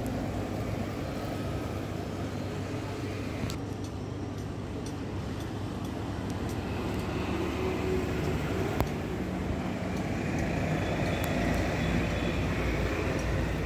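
Steady low rumble of distant engine noise, with a few faint clicks.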